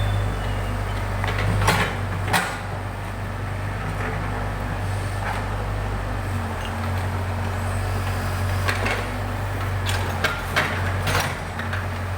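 Backhoe loader's diesel engine running at a steady speed, with a few sharp knocks and clanks scattered through, twice about two seconds in and a cluster near the end.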